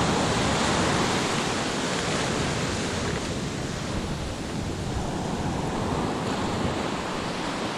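Ocean surf washing on the beach, a steady rushing hiss that swells a little at the start and eases slightly after a few seconds, with some wind on the microphone.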